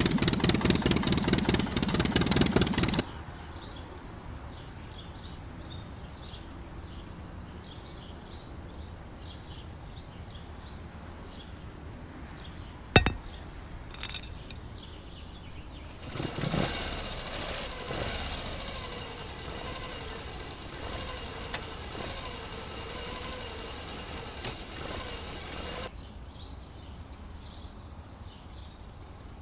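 Small electric toy motors: a loud buzz for the first three seconds that cuts off suddenly, then, about halfway through, a steadier hum that lasts about ten seconds. Birds chirp faintly between and after, with a single sharp click partway through.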